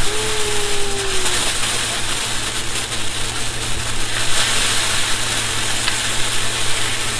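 Ground fountain firework spraying sparks with a steady hissing, sizzling rush. A brief, slightly falling whistle-like tone sounds in the first second and a half.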